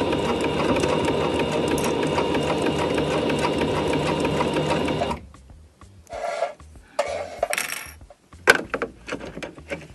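Domestic sewing machine running steadily as it stitches a seam through layered fabric, stopping abruptly about five seconds in. After that come scattered rustles of fabric being handled and a few clicks, one of them sharp, near the end.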